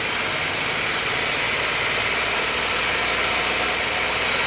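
Volkswagen Polo 1.2 petrol engine being revved lightly and held off idle, slowly getting louder as the revs rise. Its oil pressure is healthy.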